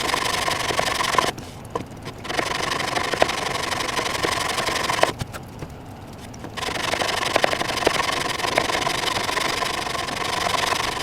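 Sanding the broken corner of a walnut cabinet down to take a replacement piece: a steady abrasive rubbing on the wood that pauses briefly twice.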